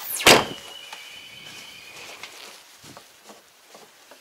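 Glass cab door of a Kubota crawler tractor slammed shut once with a sharp bang, followed by a high ringing tone for about a second and a half.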